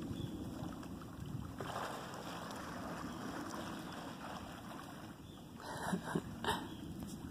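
Outdoor wind noise buffeting the microphone, a steady low rumble. Near the end come two or three short, sharp bursts of noise.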